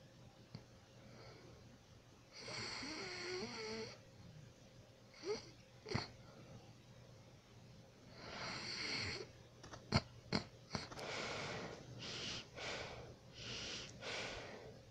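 A person snoring in their sleep. Slow breaths with a wheezy, wavering rattle come about two and a half seconds in and again around eight seconds. A few sharp clicks follow near ten seconds, then a quicker run of shorter snoring breaths near the end.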